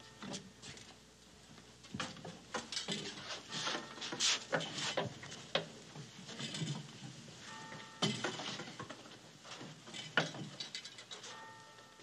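Irregular clinks, clicks and knocks of objects being handled, with a small bell ringing briefly twice, about seven and eleven seconds in.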